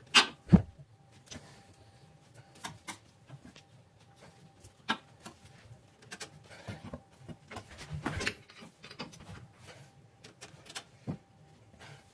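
Hand work on a pickup truck's rear leaf spring pack: scattered clicks and knocks as a screwdriver and a rubber pad are handled between the spring leaves, with two sharp knocks at the start and a longer scraping sound about eight seconds in.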